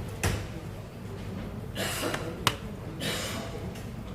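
A few sharp clicks and two short scraping, rustling noises of hands handling hard parts, over a steady low hum.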